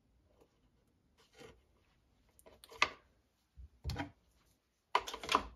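Hands handling servo wires and plugging small connectors together on an RC crawler's wiring harness: scattered light clicks and rubbing, with one sharp click about three seconds in and a louder cluster of handling noise near the end.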